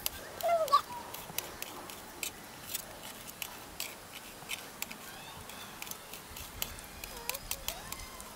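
A small kitchen knife chopping roasted garlic cloves on a stainless steel plate: irregular sharp clicks of the blade striking the steel, several a second. A bird chirps briefly near the start and again near the end.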